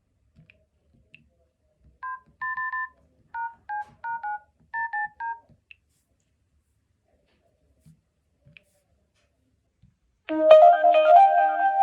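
Mobile phone keypad tones as a number is dialled: about nine short two-tone beeps in quick succession. About ten seconds in, a phone's ringtone melody starts, louder than the beeps.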